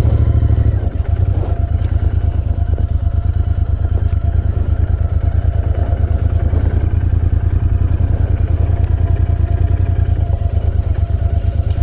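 Royal Enfield Continental GT650's 648 cc parallel-twin engine running at low speed, a steady, even low pulse.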